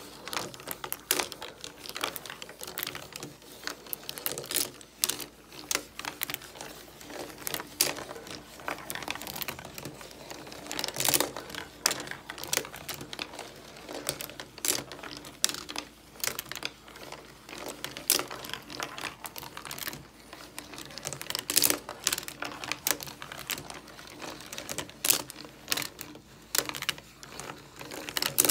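Steel marbles rolling and clacking along the tracks of a laser-cut wooden marble coaster, with its wooden gears and marble lift clicking as it runs: a steady stream of irregular sharp clicks and clatters.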